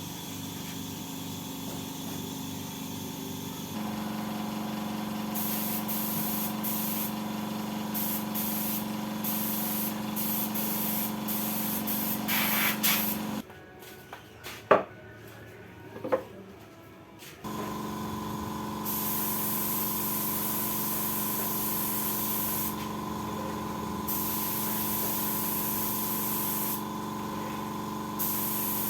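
A small motor running steadily with a hiss that cuts in and out several times. It stops for about four seconds midway, when two sharp clicks are heard, then runs again.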